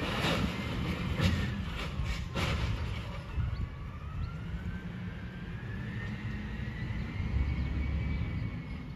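Garbage truck's engine running as the truck pulls slowly away: a steady low rumble, a faint whine that climbs in pitch as it gathers speed, and three short sharp noises in the first couple of seconds.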